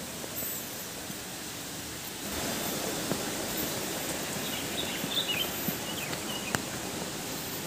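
Outdoor ambience: a steady even hiss that grows a little louder about two seconds in, with a few short, faint bird-like chirps about halfway through and scattered light clicks.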